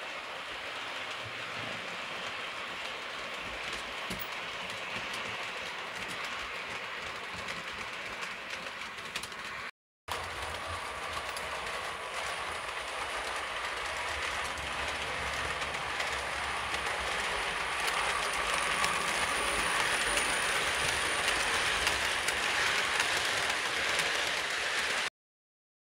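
H0-scale model train running along the layout's track: a steady rattling run of wheels on rail. It cuts out briefly about ten seconds in. It then resumes with a thin high whine and grows louder before stopping abruptly shortly before the end.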